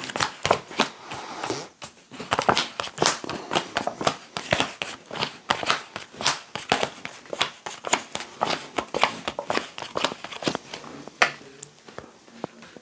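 A deck of fortune-telling cards being shuffled by hand: a quick, irregular run of papery flicks and taps that thins out near the end.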